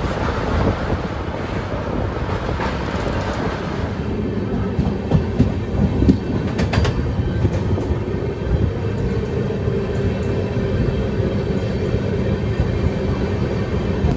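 Passenger express train running, heard from on board: a steady rumble of steel wheels on the rails, with a few sharp clattering knocks about midway as it rolls past a platform.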